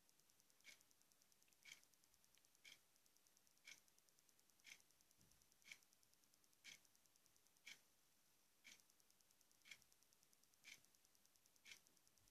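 Near silence, with a faint short click repeating evenly once a second.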